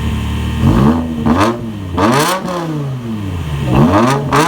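BMW E60 M5's V10 engine through a muffler-deleted exhaust: idling steadily, then revved in quick blips about a second in and again near the end, the pitch rising sharply and falling back each time, with a rasp at the top of each rev.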